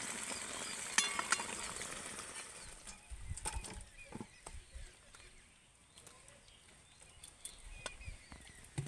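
Brinjal curry sizzling in a steel kadai, with two sharp metal clinks about a second in; the sizzle fades, then soft thuds and knocks follow as the thick gravy and brinjals are poured out into a steel plate.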